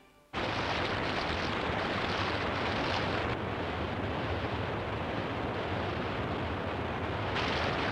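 Rushing whitewater river torrent, a steady rush of fast water that starts suddenly about a third of a second in. It turns slightly duller around three seconds in and brighter again near the end.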